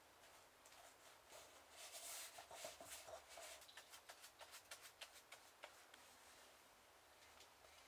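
Faint handling sounds: soft rustling and light ticks as fingers work a paper endsheet inside a leather-bound book, thinning out after about six seconds.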